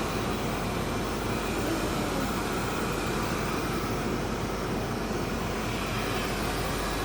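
Robot vacuum cleaner running: a steady, unchanging whirring hum.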